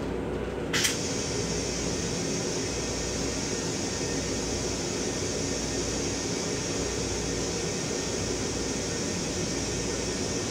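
Steady low rumble and airy ventilation hiss of a Metro-North M7 electric railcar, heard from inside its restroom. A sharp click about a second in, after which a higher hiss comes up a little and holds steady.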